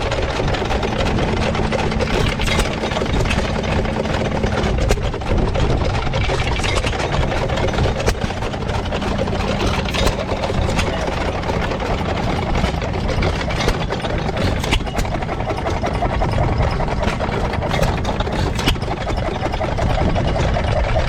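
Several antique hit-and-miss stationary gas engines running at idle together, each firing in irregular beats so the strokes overlap in a steady uneven chugging.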